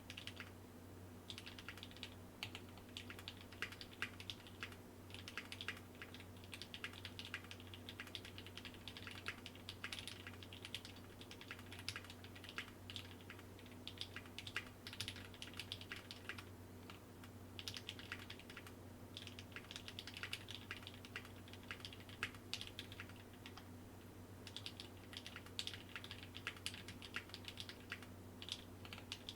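Typing on a Tofu60 custom mechanical keyboard with lubed Novelkey Cream linear switches, GMK keycaps, a brass plate and a Sorbothane-filled case: a steady stream of keystrokes broken by short pauses, over a faint steady hum.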